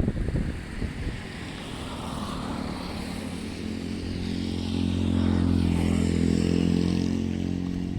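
A motor engine running steadily and drawing closer, growing louder to its peak about five to seven seconds in and easing slightly near the end.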